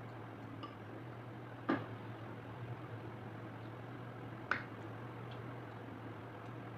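Cutlery clinking against a plate or bowl twice, about three seconds apart, with a few fainter ticks between, over a steady low hum.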